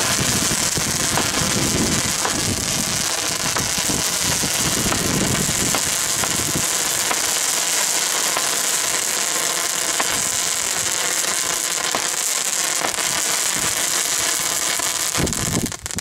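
A ground fountain firework spraying with a loud, steady hiss and scattered crackles. The sound cuts off abruptly near the end.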